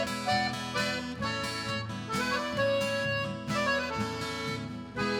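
Accordion playing the melody over an acoustic guitar accompaniment in an instrumental passage of a sertanejo song, with no singing.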